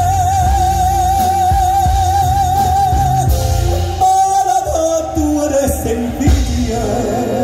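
Live copla song with band accompaniment: a male singer holds one long note with a wide, even vibrato for about three seconds, then the melody steps downward in a new phrase about four seconds in.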